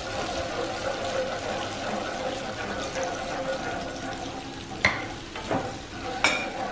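Fish-sauce and sugar sauce simmering and sizzling in a small frying pan as it comes to the boil, stirred with chopsticks. Two sharp clicks of the chopsticks against the pan, about five seconds in and again near the end.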